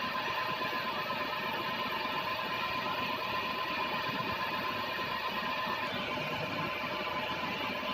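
Bridgeport tool room milling machine running steadily under power, with a constant whine over its running noise.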